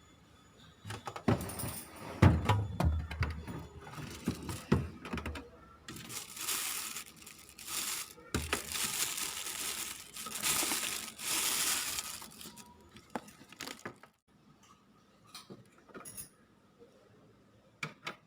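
Objects being handled: a series of knocks and clatters, with longer stretches of rustling, crinkling noise in the middle, then only a few faint clicks.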